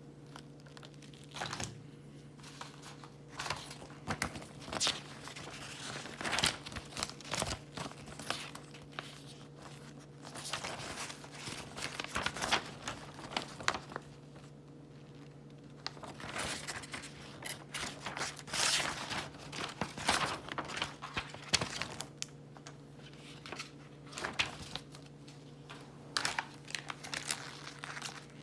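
Packaging of a Hot Wheels track set being crinkled and torn open by hand, in irregular bursts of crackling with short pauses, over a steady low electrical hum.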